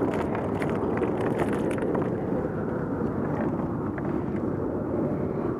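Light spinning reel cranked steadily, a continuous fine whirring of its gears as line is reeled in.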